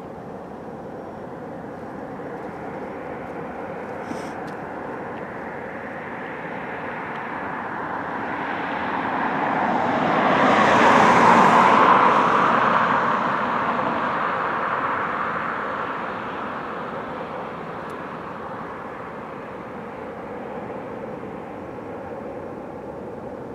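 Airplane passing overhead on its landing approach: a steady engine rush that swells slowly, peaks about eleven seconds in with a high hiss on top, then fades away.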